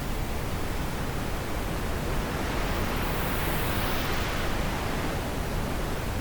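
Wind blowing steadily with a hissing rush, swelling in a gust around the middle and easing off again.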